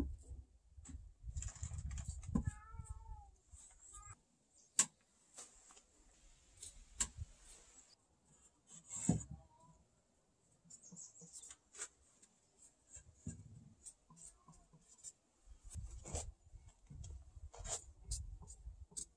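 Quiet knocks, taps and scrapes of pine floorboards being handled and set in place by hand, with a few sharper wooden clicks. A brief wavering squeak, like a faint meow, comes about two and a half seconds in.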